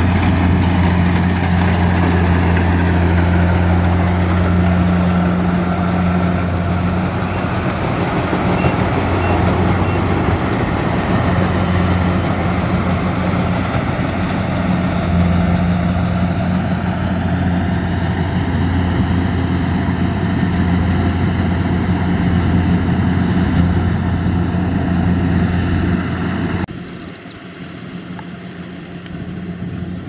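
Kubota DC70 rice combine harvester working in the field, its diesel engine giving a steady low hum under a dense wash of machinery noise. Near the end the sound drops abruptly to a quieter level.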